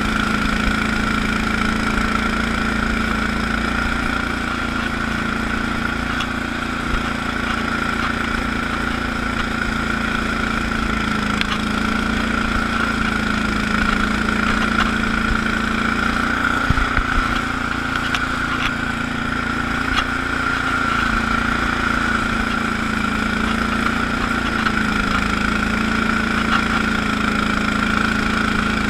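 Allis-Chalmers HB-112 garden tractor engine running steadily under load while its front rotary broom sweeps snow, with a constant high whine over the engine note. The engine note sags briefly midway, with a few knocks.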